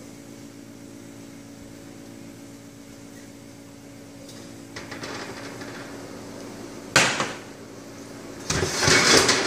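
Metal cake pans being lifted out of an oven and set down on a glass-top range, with a sharp clank about seven seconds in and a louder rattle near the end as the oven rack and door are handled, over a steady low hum.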